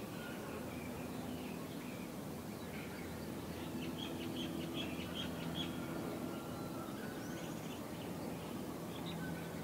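Birds chirping over a steady low background hum, with a quick run of about five chirps around the middle.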